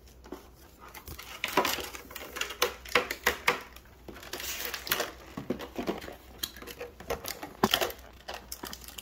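Foil Pokémon booster packs crinkling and rustling as they are handled and sorted, with irregular sharp crackles and taps that are busiest through the middle.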